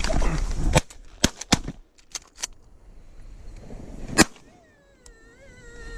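A volley of shotgun shots fired at incoming teal: several sharp blasts in the first two and a half seconds, then a single loudest shot about four seconds in. A faint wavering whistle-like tone follows near the end.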